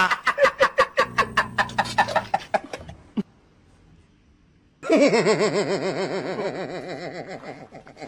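Laughter: a rapid run of 'ha-ha' bursts that fades out over about three seconds, then after a short pause a longer laugh with a wavering pitch that slowly dies away.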